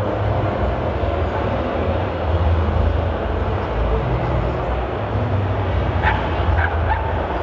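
Steady crowd chatter and hall noise, with a few short yaps from a dog about six seconds in.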